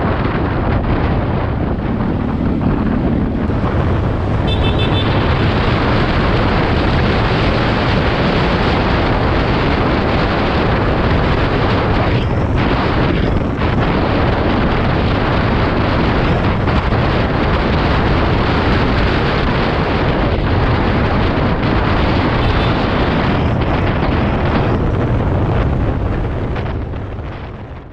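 Heavy wind noise buffeting a helmet-mounted GoPro Hero 7's microphone at motorcycle riding speed, with no foam wind cover fitted. It dies away near the end.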